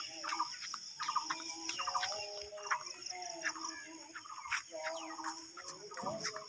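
Domestic fowl clucking in short, repeated calls, over a steady high-pitched background hum.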